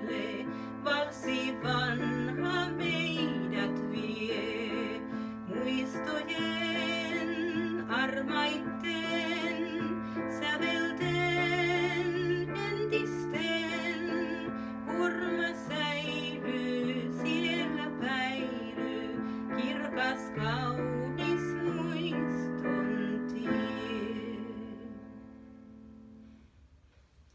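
A woman singing a Finnish waltz with wide vibrato, accompanied by chords and a walking bass line on a digital piano. The song ends near the end, the last note and chord dying away to near silence.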